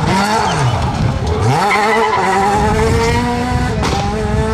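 Renault Clio R3 rally car's two-litre four-cylinder engine working hard through a hairpin: the revs dip twice in the first second and a half, then climb steadily as the car accelerates away. Just before four seconds in there is a brief sharp crack as the revs drop a little and climb again, as on an upshift.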